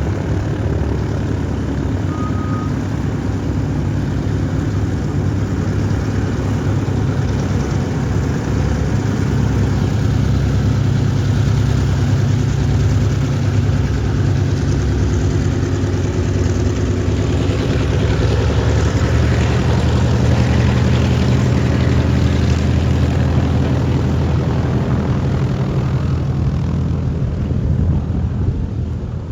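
B-29 Superfortress Doc's four Wright R-3350 eighteen-cylinder radial piston engines running steadily, a deep even drone; it drops off a little just before the end.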